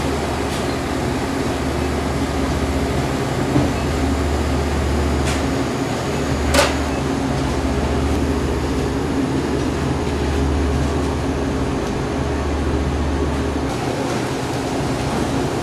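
Steady mechanical hum and rushing noise of machinery, with a low drone that drops out and comes back every few seconds. Two sharp clicks stand out, about three and a half and six and a half seconds in.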